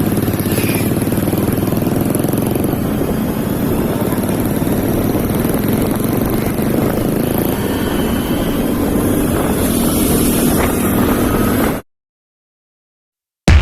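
Harley-Davidson motorcycles running steadily on the move. The engine sound cuts off abruptly about twelve seconds in.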